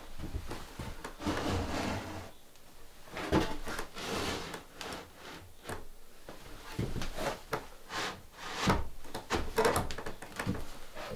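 A string of irregular knocks, clunks and short scrapes, like things being handled and set down.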